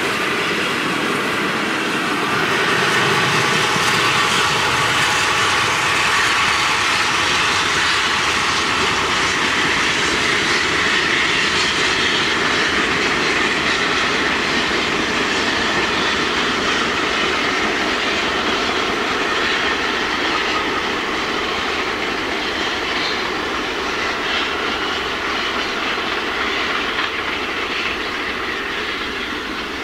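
Steam-hauled train of old passenger coaches rolling by on the track with wheel-on-rail clatter, growing slowly fainter towards the end as the train draws away.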